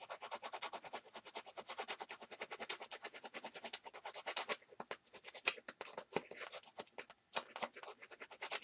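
Rapid crinkling and scratching of plastic packaging being handled as a replacement laptop keyboard is unpacked. It is dense for the first half, then thins out into scattered crackles.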